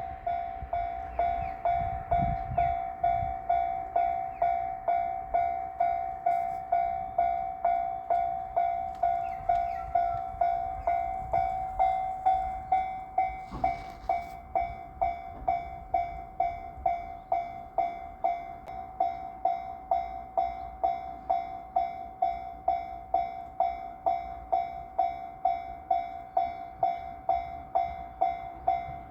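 Japanese railroad crossing warning bell ringing in an even, steady 'kan-kan' rhythm, about two strikes a second. A low rumble passes a couple of seconds in.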